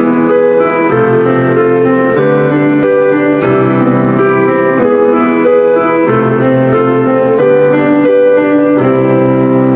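Electronic keyboard playing a slow piece in sustained chords under a melody, the chord changing about once a second.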